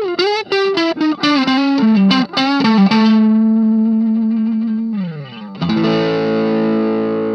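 Electric guitar, a Fender Stratocaster, played through an Ibanez Tube Screamer Mini overdrive into a small Marshall MG15 amp. It plays a descending single-note lead line with vibrato, then a held note that slides down in pitch. About halfway through, a chord is struck and rings out before being cut off sharply at the end.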